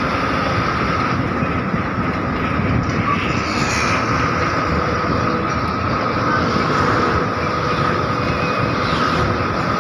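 Steady engine and road noise heard from inside a moving bus, with a constant high whine over the rumble.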